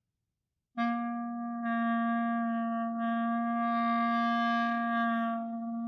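Clarinet holding one steady low note while the player sings into the instrument at the same time, his sung pitch gliding up and back down against the held note. This is the extended technique of singing or growling into the clarinet while playing. It starts about a second in.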